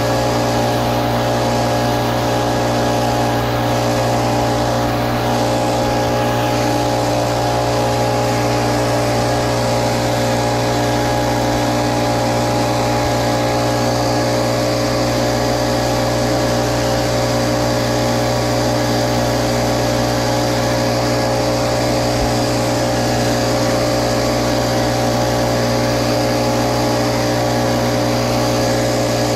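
Little Wonder Optimax walk-behind blower running steadily: a constant engine drone with the rush of its fan blast, blowing pine needles across the ground.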